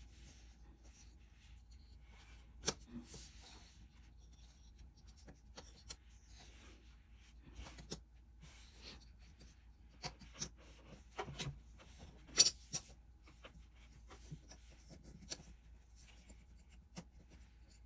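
Jigsaw puzzle pieces being slid, tapped and pressed into place on a wooden table by small hands: scattered light taps and scraping rubs, with sharper knocks about three seconds in and again about twelve seconds in.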